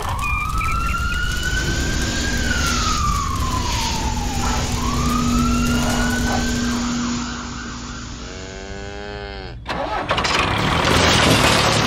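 A siren wailing, its pitch slowly rising and falling in long sweeps. It fades with a falling tone about eight seconds in, and after a sudden change near ten seconds a louder, rougher engine-like noise takes over.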